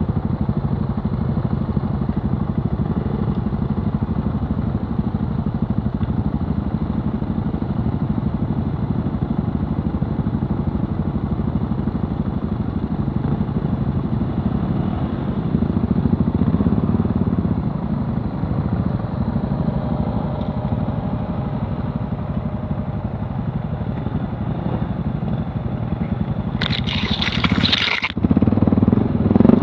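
Enduro motorcycle engine idling steadily with a low rumble. Near the end there is a short loud rushing noise, then a louder burst of engine as the bike moves off through mud.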